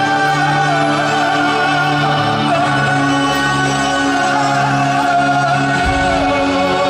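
Live rock band: a male lead singer holds a long, wavering sung line over sustained keyboard chords and electric guitar. About six seconds in, a heavy low end comes in underneath.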